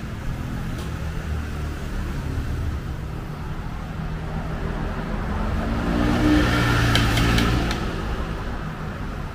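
Motor vehicle engine passing over a steady traffic rumble; it grows louder about six seconds in and fades after about seven and a half seconds.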